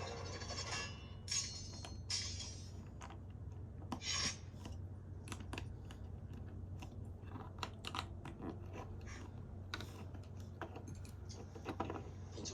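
Plastic LEGO pieces from a LEGO Typewriter set being handled and pressed together: irregular small clicks with a few short rustling rattles, over a low steady hum.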